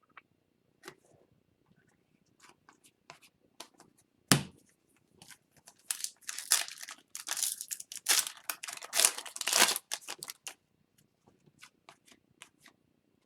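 Trading card pack wrapper being torn open and crinkled, among scattered small clicks and taps of cards being handled. A single sharp knock about four seconds in; the densest tearing and crinkling falls between about six and ten seconds in.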